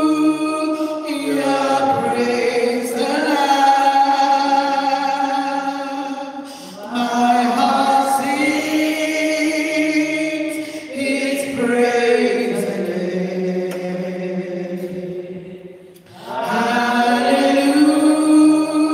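A solo singer singing into a microphone in long, slowly moving held notes. The line breaks off briefly about six and a half seconds in and again about sixteen seconds in.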